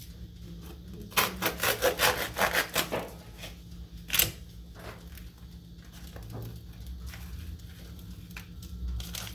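Knife sawing through a baguette: a quick run of rasping strokes for about two seconds, then a single sharp knock.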